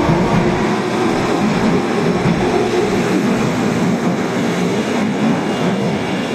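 Tanimachi Line 22-series subway train running, a steady rumble of wheels on rail with a faint motor whine that fades in the first couple of seconds.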